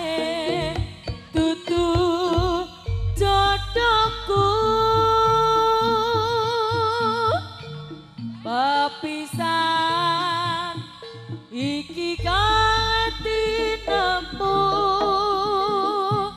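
Live Javanese jaranan music: a melody of long notes that slide up into each note and waver with vibrato, over drumming, with a deep low tone entering twice.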